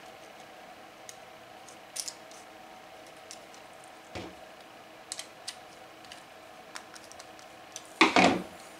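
Scattered light clicks and taps of an M4 screw, nut and 3D-printed plastic printer parts being handled and fitted together by hand, with a louder burst about eight seconds in.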